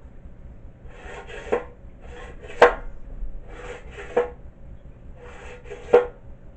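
Briggs & Stratton recoil starter being tested after a new pull cord: the rope pulled out and let rewind four times, each pull a rasping whir that ends in a sharp snap as the handle returns to the housing.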